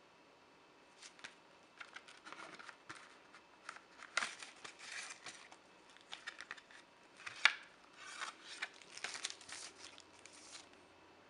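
Paper and card being handled: a CD single's sleeve and its paper inserts and photo card sliding, rubbing and rustling in short scrapes, with a sharp click about four seconds in and a louder one about seven and a half seconds in.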